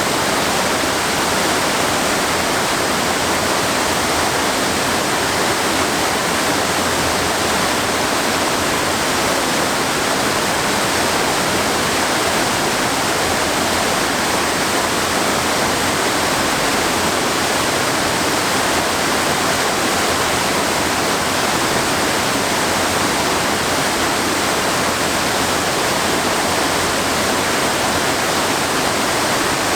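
Waterfall cascading over rocks into a river, a loud, steady rush of falling water that never changes.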